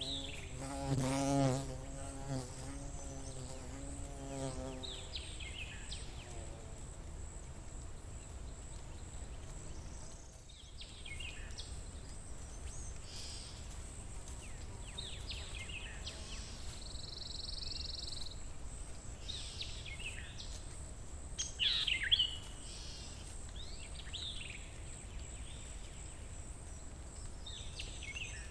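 A buzzing insect flies close by for the first few seconds, its drone wavering in pitch. Small birds then chirp on and off, with short falling calls, over a steady high thin tone and a low rumble of forest ambience.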